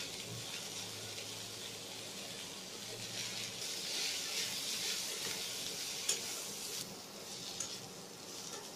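Sliced bitter gourd and onion frying in mustard oil in a stainless steel kadhai, sizzling steadily while being stirred. The sizzle swells in the middle, with a single sharp click about six seconds in, and eases a little after.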